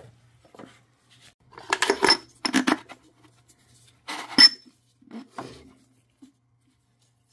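Metal strut parts and hand tools being handled and set down on a concrete floor: a cluster of knocks and clinks about two seconds in, the loudest clink with a short ring about four and a half seconds in, then a few quieter knocks.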